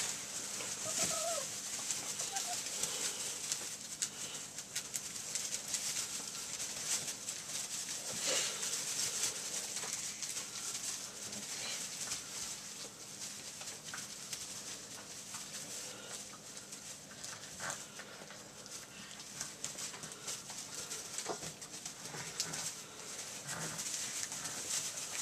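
Retriever puppies scuffling and playing in a bed of wood shavings, the shavings rustling and scratching under their paws, with a few faint puppy squeaks and yips.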